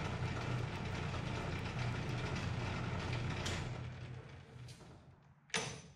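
Steady low mechanical hum with a hiss over it, fading away from about four seconds in, then a short burst of noise just before the end.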